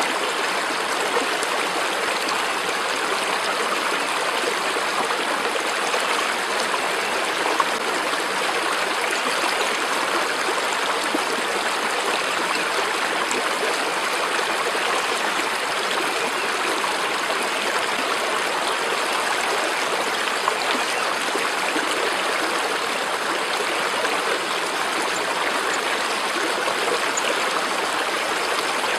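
Steady flowing water of a stream, an even, unbroken rush of running water.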